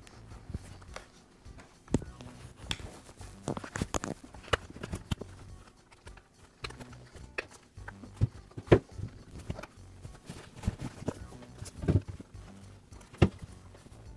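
Rubber boot being worked and rolled off the plastic nose of a Makita reciprocating saw: irregular handling noise with scattered clicks and knocks against the saw housing, the sharpest about nine seconds in.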